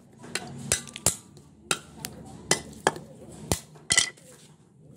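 Butcher's blade chopping goat meat on a wooden log block: irregular sharp chops, about eight, with a quick, loud cluster of strikes about four seconds in.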